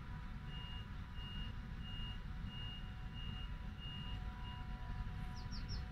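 A high electronic warning beep repeating seven times, evenly, about one and a half beeps a second, then stopping, over a steady low rumble.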